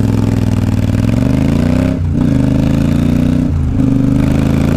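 Triumph Speedmaster 865 parallel-twin engine pulling away from a standstill. The revs rise, drop at an upshift about two seconds in, climb again and drop at a second shift after about three and a half seconds, then the engine runs steady.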